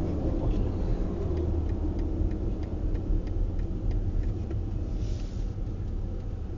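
Steady low rumble of a car's tyres and engine heard from inside the cabin at highway speed, with faint, evenly spaced ticks through the middle and a brief hiss about five seconds in. The rumble eases slightly toward the end as the car slows for traffic.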